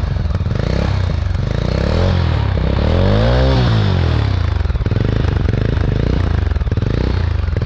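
Mahindra Mojo BS6's single-cylinder engine idling through an aftermarket Lluvia Mild Bass dB killer fitted in place of the stock one. About two seconds in it is revved once, the pitch climbing and then falling back to idle by about four and a half seconds.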